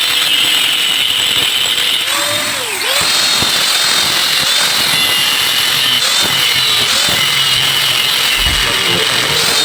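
Electric power tool running steadily on metal with a high whine. Its pitch dips and recovers about two to three seconds in as it takes load.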